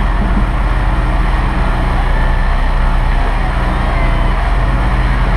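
Fire truck engine running steadily with a low, even hum as the truck drives, heard up close from a camera mounted on the truck's body, with a constant haze of road and air noise over it.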